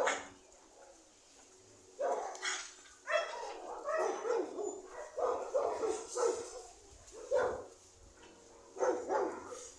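Dogs barking in short, repeated bursts. After a quiet first two seconds the barking starts and runs in quick succession, easing off near the end.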